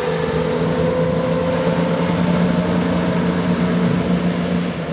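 CrossCountry Class 170 Turbostar diesel multiple unit running alongside the platform, its underfloor diesel engines giving a steady drone over wheel and rail rumble, dropping away near the end.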